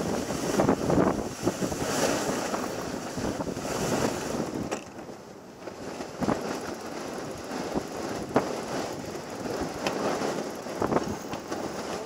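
Wind buffeting the microphone and water rushing and splashing past a sailboat under way, with a few sharp knocks.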